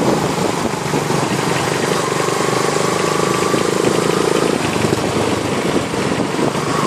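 Motorcycle engine running steadily on the move, with wind and road noise over it; a steady higher whine joins about two seconds in.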